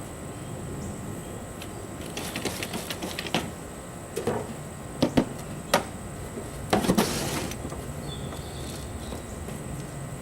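Hands digging through soil in a potato container, with rustling and scraping and a few sharp knocks as the soil and tubers are handled. There is a cluster of quick clicks about two seconds in and a longer rustle about seven seconds in.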